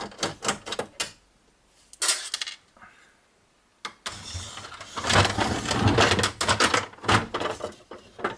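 Plastic housing of an HP Photosmart C3180's scanner section being pried and pulled apart by hand: a few sharp clicks, a short clatter, then from about four seconds a dense run of clicking and knocking plastic as the cover comes off.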